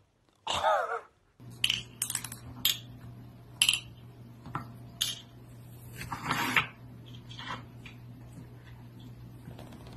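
Wooden tiles of a cat's puzzle feeder clacking and sliding on the board as they are pawed and lifted, a string of sharp clicks and knocks over a low steady hum. A short wavering vocal call comes in the first second.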